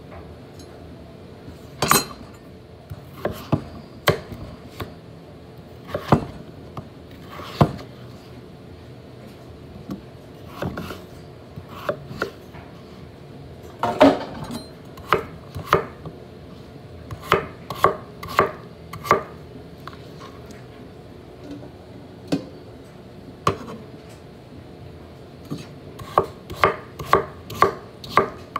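Large kitchen knife chopping raw potato on a wooden cutting board: irregular knocks of the blade hitting the board, sometimes single with pauses between, sometimes in quick runs of about three a second.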